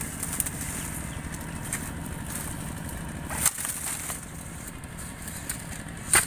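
Dry bamboo leaves and twigs crackling and snapping a few times over a steady low rumble. The loudest snap comes near the end.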